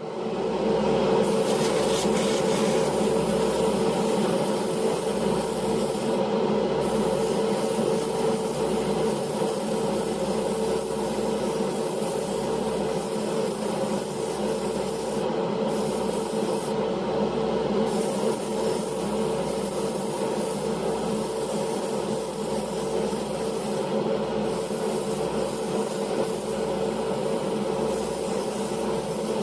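Dremel rotary tool running steadily at high speed with a Velcro polishing pad, buffing the small model's windscreen with T-Cut, a steady high motor whine over a rubbing hiss.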